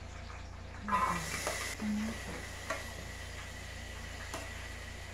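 Sliced vegetables and tomatoes dropped into hot oil in a stainless steel pot: a short sizzle about a second in that quickly dies down. A metal spoon scrapes the plate and clicks against the pot a couple of times after it.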